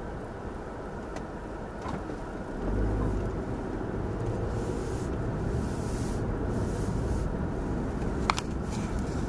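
Car engine and road noise heard from inside the cabin through a dash cam, growing louder about three seconds in, with a sharp click near the end.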